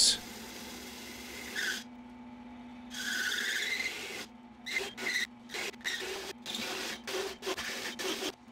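Drill press running at its lowest speed with a steady hum while a hole saw cuts into a sheet-metal panel. The cutting gives a rasping scrape that comes and goes in short strokes from about three seconds in.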